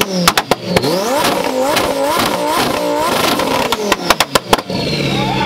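Lamborghini Huracán's V10 being revved in quick repeated blips, its pitch rising and falling about three times a second. Clusters of loud, sharp exhaust cracks and pops come just after the start and again about four seconds in.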